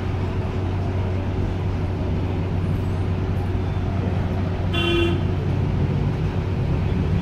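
A steady low hum under a noisy background, with one short tooting note about five seconds in.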